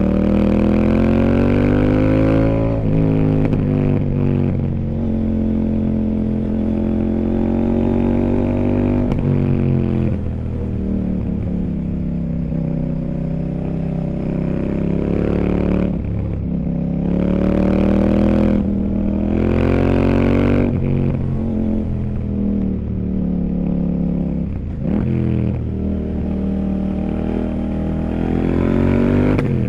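CFMOTO 800NK Sport's 799 cc parallel-twin engine under way, its note climbing in pitch as the throttle opens and dropping back several times, with a steady low rumble underneath.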